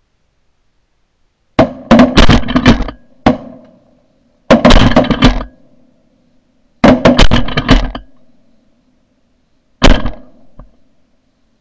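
Several shotguns firing in ragged volleys: five or six loud bursts of overlapping shots over about eight seconds, each dying away quickly.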